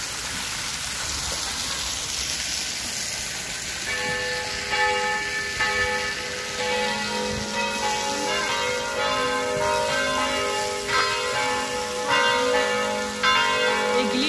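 Splashing fountain water, then church bells start ringing about four seconds in: repeated strokes, each left to ring and overlapping the next.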